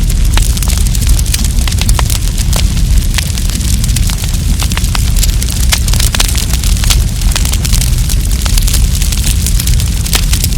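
Wood campfire burning, crackling with frequent sharp pops and snaps over a steady low rumble.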